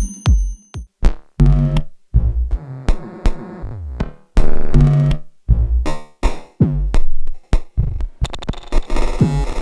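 Eurorack modular synthesizer, played from an Intellijel Tetrapad touch controller, sounding electronic drum hits and short pitched synth notes. A steady kick pattern stops about a second in, followed by irregular synth stabs and hits that get busier near the end.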